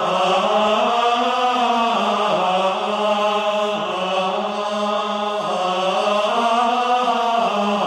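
Male choir of Norbertine monks singing Gregorian chant in unison, one sustained line that moves slowly up and down in pitch without a break.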